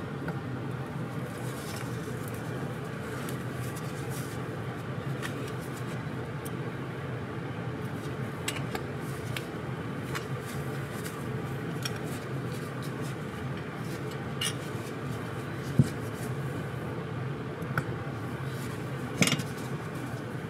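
Scattered light metallic clicks and taps as a scooter carburetor and small tools are handled and set down, with a few sharper clicks in the second half, over a steady background hum.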